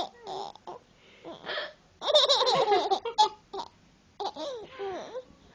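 Baby laughing in bursts, the longest about two seconds in, set off by its mother's hiccups; a few short, sharp hiccups come between the laughs.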